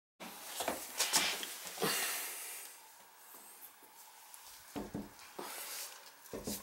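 Scattered knocks, rubbing and a few low thuds in a small tiled room.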